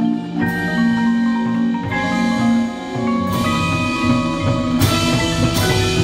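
Marching band playing its field show: front-ensemble mallet percussion (marimbas and vibraphone) ringing out held notes and chords under the band's sustained lower parts, with a cymbal crash every second or two.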